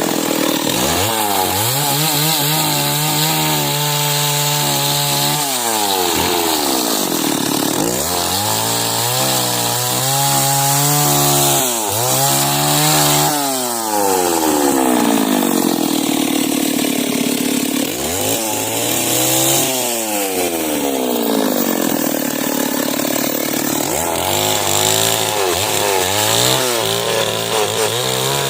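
Two-stroke chainsaw ripping a log lengthwise into beams. Its engine note sags about five times as the chain bites into the wood under load, then climbs back to full revs.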